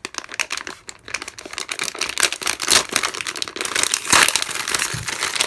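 Plastic packaging crinkling and crackling as it is handled and torn open, in quick irregular bursts, louder about three to four seconds in.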